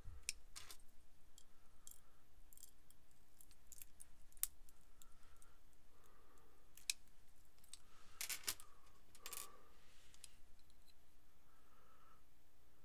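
Faint, scattered small metallic clicks and clinks of blackened stainless steel chainmail rings being handled and worked with pliers, with a couple of short jangles past the middle.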